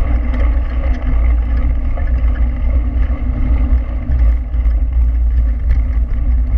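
Wind rushing over the microphone of a handlebar-mounted action camera, with a steady low rumble, over the hiss of mountain-bike tyres rolling fast on a gravel road.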